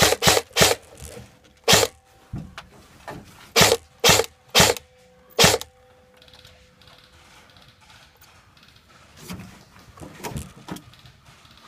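Airsoft rifle shots: about seven sharp cracks at irregular spacing in the first six seconds, then a quieter stretch with only faint rustling.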